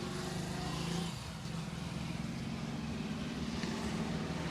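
Motor vehicle engine running steadily amid roadside traffic noise, its low hum stepping up slightly in pitch about a second and a half in.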